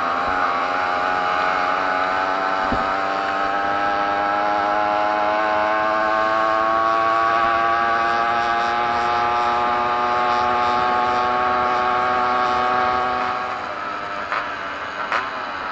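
Small two-stroke moped engine run at full throttle, its buzzing note climbing slowly as speed builds, then falling in pitch and loudness near the end.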